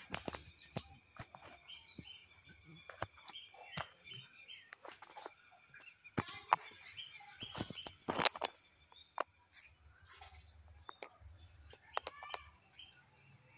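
Birds chirping steadily in the background, with scattered clicks and knocks from hands working at an open plastic drum, the loudest knock about eight seconds in.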